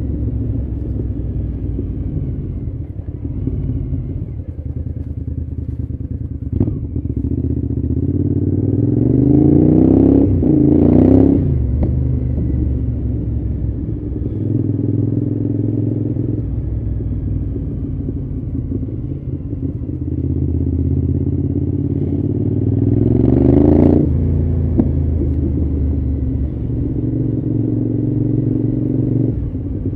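Cagiva V-Raptor 1000's 996 cc V-twin engine under way. Twice the revs rise as the bike accelerates, about ten seconds in and again near twenty-four seconds, and each time they drop sharply as the throttle is shut or a gear is changed.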